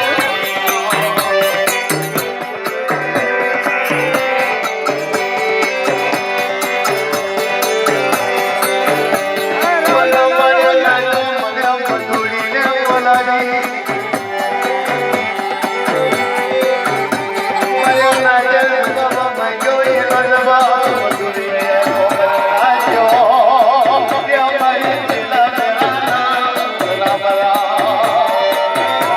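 Gujarati dakla folk music: a steady, regular drum beat under a melody line that wavers in pitch, with a rattling percussion layer.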